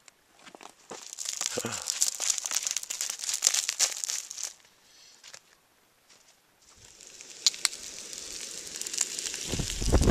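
Dense crackling and rustling for about three and a half seconds that stops abruptly, then a brief silence, then a hiss that grows louder towards the end.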